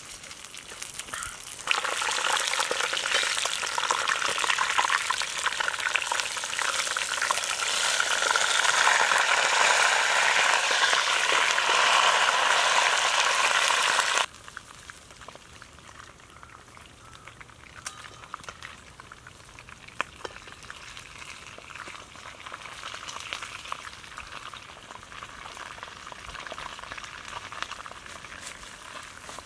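Fish frying in hot oil: a loud, dense crackling sizzle begins about two seconds in and cuts off abruptly about halfway through. After that a much quieter steady sizzle carries on, with occasional pops.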